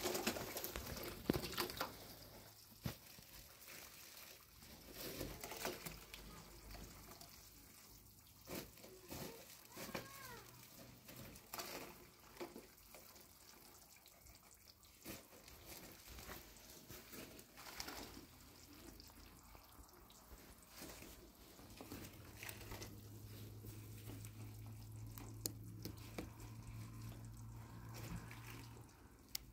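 Hands splashing and stirring water in a wide basin, mixing in white powder, with scattered soft splashes and rustles. A low steady hum comes in about two-thirds of the way through.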